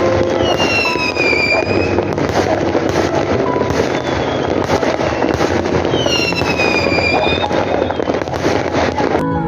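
Aerial fireworks bursting in a dense, continuous crackle. A high whistle falls in pitch twice, about a second in and about six seconds in. The crackle cuts off suddenly near the end.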